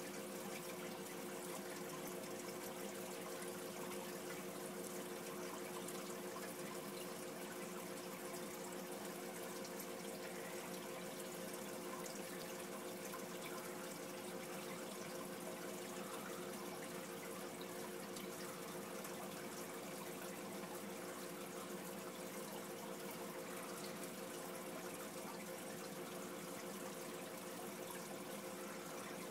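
Steady aquarium water noise: air-stone bubble streams and filter water bubbling, with a constant hum underneath.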